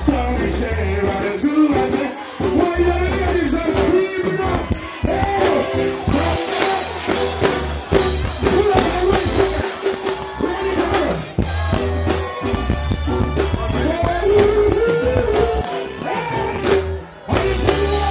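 Live reggae music played loud through a sound system: a singer's voice over a heavy bass line. The music dips briefly near the end.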